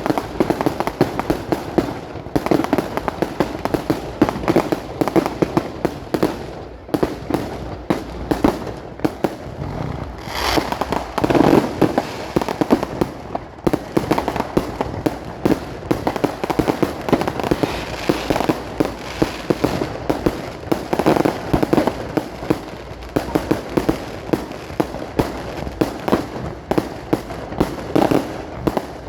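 Fireworks going off in rapid, continuous succession: a dense crackle of bangs and pops, with heavier clusters of bursts about a third of the way in and again past two-thirds.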